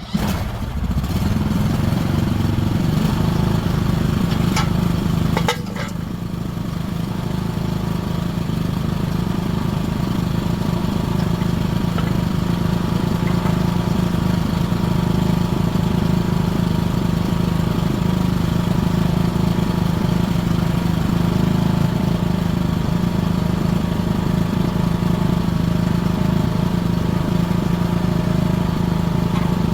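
A 20 hp mini excavator's small engine comes up and runs steadily. About five seconds in it drops in level for a moment, then slowly rises back to a steady run.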